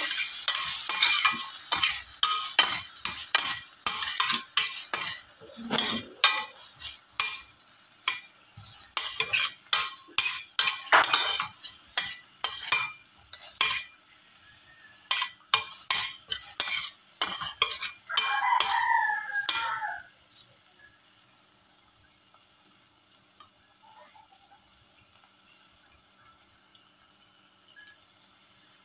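Utensil stirring and scraping against a stainless steel frying pan in quick, irregular clicks, over the sizzle of aromatics frying in anchovy chilli paste. The stirring stops about 20 seconds in, leaving a faint steady sizzle.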